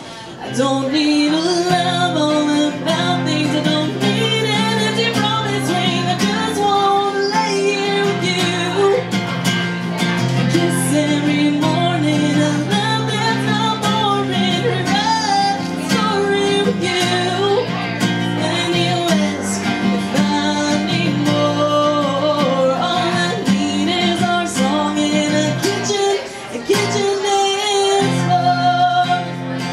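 Country song: singing with acoustic guitar accompaniment.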